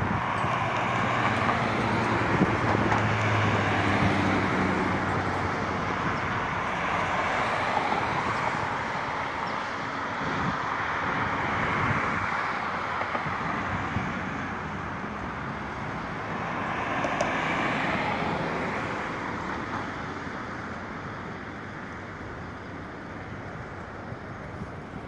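Road traffic on a multi-lane boulevard: tyre and engine noise from cars passing one after another, swelling and fading every few seconds, with a low engine hum during the first few seconds.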